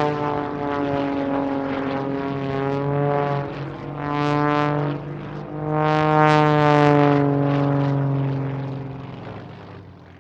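Propeller biplane's engine diving and passing by. The engine note swells and dips several times, then comes in loudest about six seconds in and falls in pitch as it fades away near the end.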